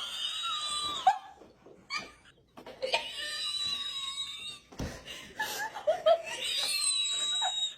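High-pitched squealing laughter in three long stretches with short breaks between them.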